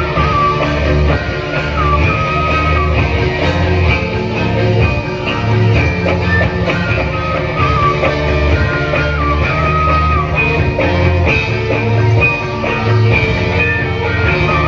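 Live instrumental accompaniment for a topeng ireng dance. A lead melody slides between held notes over heavy, pulsing drum and bass beats, with no singing.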